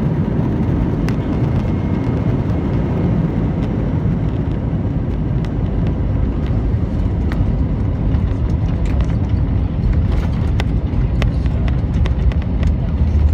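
Airbus A321 on the runway, heard from inside the cabin: a loud, steady roar of the jet engines and airflow over a deep rumble, with scattered light knocks and rattles. The low rumble grows a little near the end.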